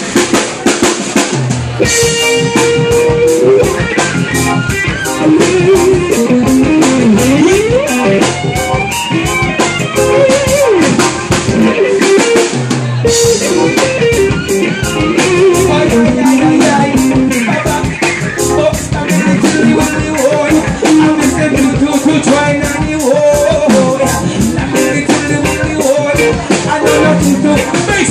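Live reggae band playing: drum kit keeping a steady beat of about four hits a second, with bass guitar, electric guitar and keyboard.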